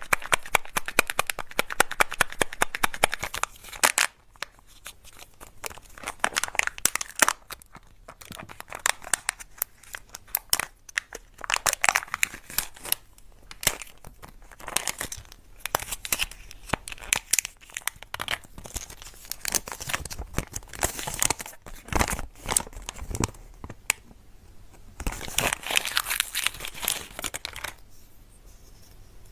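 Plastic and foil wrappers of surprise eggs and candy being torn open and crinkled by hand, in crackling bursts with short pauses, dying down near the end.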